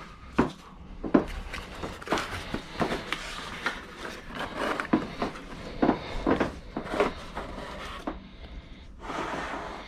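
Handling noises: a busy run of light knocks, clicks and rubbing as small hard objects are picked up, moved and set down.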